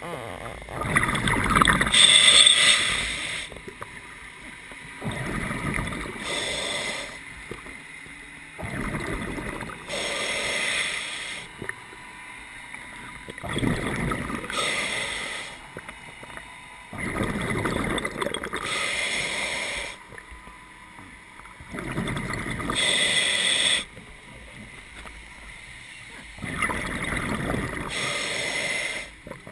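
Scuba diver breathing through a regulator underwater: a hiss on each inhale and a burst of bubbling on each exhale, coming in a slow, regular cycle every few seconds.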